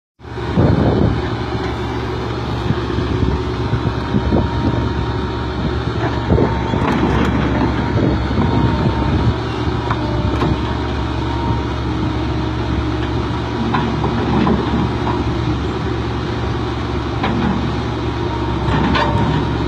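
Excavator's diesel engine running steadily with a heavy low rumble, cutting in suddenly at the start, with a few scattered metallic knocks and clanks from the machine working.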